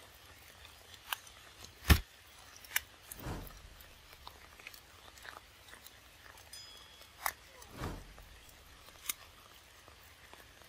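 Young macaques biting and chewing ripe mangoes: scattered wet clicks and smacks, the sharpest about two seconds in.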